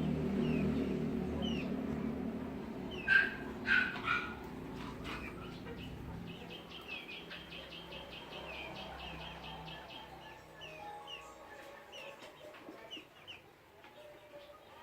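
Chickens clucking, with three loud squawks about three to four seconds in. Short high chirps sound throughout, and a quick rapid run of calls comes about halfway through.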